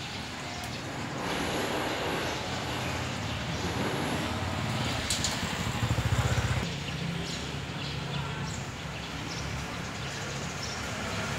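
Street traffic noise: a steady hum of passing vehicles, with one vehicle passing close and louder about six seconds in, and a few light clicks.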